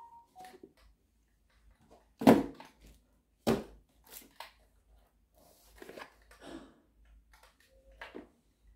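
Handling noise: two sharp knocks about a second apart, then lighter clicks and rustling.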